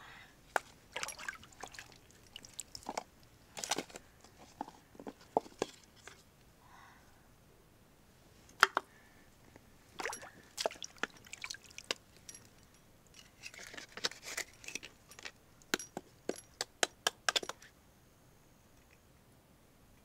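A giant freshwater pearl mussel being handled and worked open: irregular sharp wet clicks, taps and small squelches of shell and flesh, some in quick clusters.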